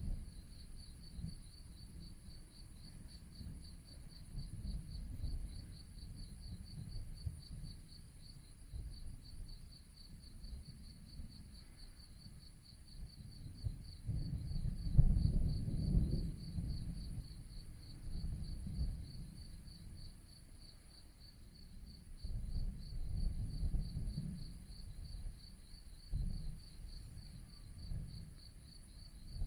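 Crickets trilling steadily, with low rumbles of distant thunder that rise and fade; the loudest rumble swells about halfway through.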